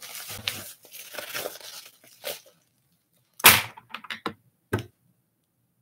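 Padded paper mailer being handled, crinkling and rustling, with a few short, sharper crackles about halfway through.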